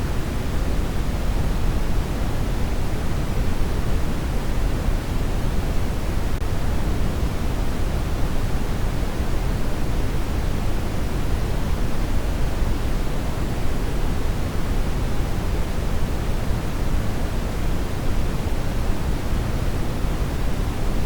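Steady, electronically generated noise: a constant, unchanging rush with its weight in the low end, thinning toward the highs.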